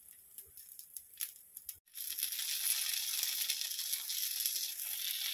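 Paddu (appe) batter frying in oil in an appe pan on low flame: faint crackles at first, then after a brief gap about two seconds in, a steady, louder sizzle with small ticks while a paddu is turned in its mould.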